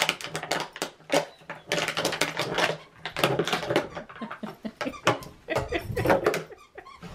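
A thick plastic water bottle crackling and clicking in irregular bursts as a miniature schnauzer bites and chews it.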